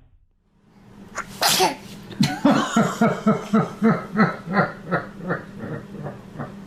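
A baby sneezes once, then laughter follows as a run of short rhythmic 'ha' pulses, about three a second, slowly fading.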